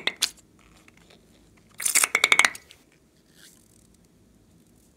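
Liquid slime squirting from a squeezed balloon through a plastic nozzle, spluttering with air in a rapid string of wet pops for under a second, about two seconds in.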